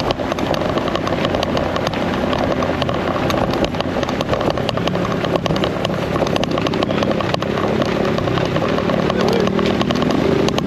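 Small motorcycle engine running while riding over rough cobbles, with a constant clatter of knocks and rattles from the stones. The engine note rises in the second half.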